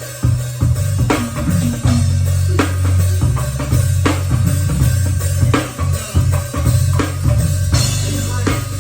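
A band playing, led by a drum kit with kick and snare hits over a deep bass line.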